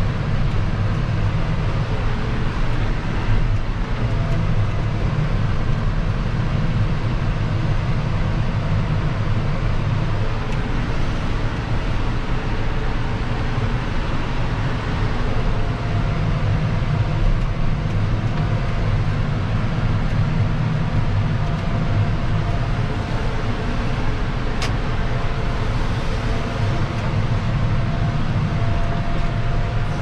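John Deere 6155R's six-cylinder diesel engine running steadily under load while pulling a plough, heard from inside the tractor cab. A faint steady whine joins about halfway through.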